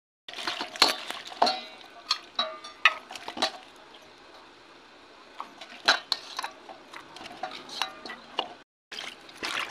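Stainless steel bowl and pan clinking and knocking as chopped raw onions, tomatoes, garlic and dried red chillies are handled and tipped between them: a string of sharp metal clinks, some with a brief ring, with a quieter stretch about four seconds in.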